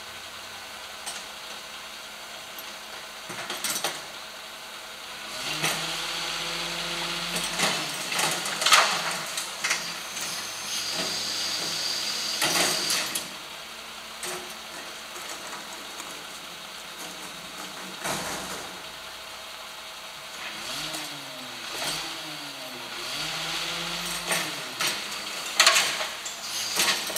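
Rear-loading garbage truck (Hidro-Mak body on a Ford Trucks chassis) running its hydraulics. The engine idles steadily, then revs up and down in several spells as the lifter raises and tips a metal wheeled bin, with clanks and clatter of the bin and falling rubbish.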